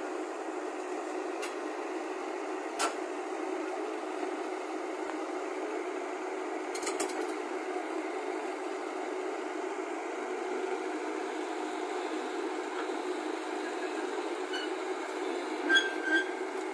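JCB tracked excavator's diesel engine running steadily while it crawls along a steel flatbed lorry bed, with a few sharp metal clanks: one about three seconds in, a pair about seven seconds in, and two louder ones near the end.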